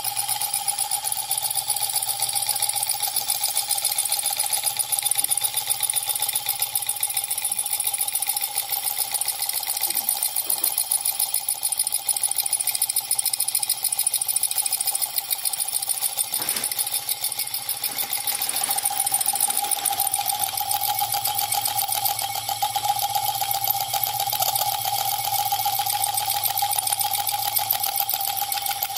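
Homemade DIY electric motor running steadily, its coil-wound rotor spinning fast on its shaft with a continuous buzz made of very rapid ticking over a steady mid-pitched tone. A few light knocks come about halfway through.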